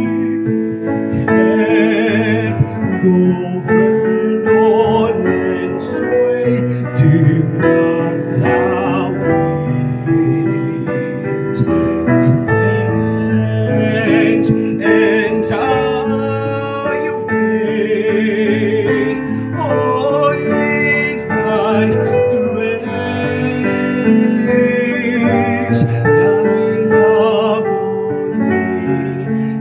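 A solo singer sings a slow song with strong vibrato on long held notes, over a piano accompaniment.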